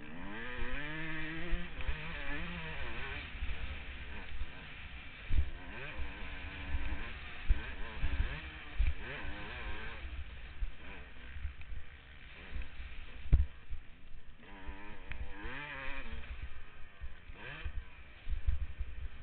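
Suzuki RM250's single-cylinder two-stroke engine at full racing revs, the pitch climbing sharply, dropping at each gear change or throttle-off and climbing again, with irregular low thumps on the helmet microphone throughout.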